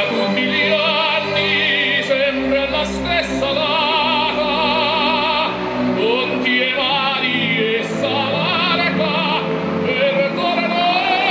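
Operatic singing with a strong vibrato over music, the voice rising and falling in long held notes.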